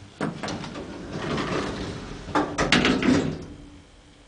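Freight elevator's sliding doors running with a rumble and a cluster of metallic clanks late on, after which the noise stops.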